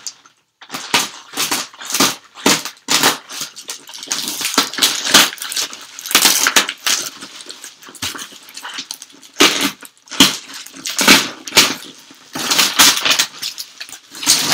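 Cardboard parcel and plastic packaging being pulled open and handled: a dense, irregular run of rustling and crinkling with brief pauses.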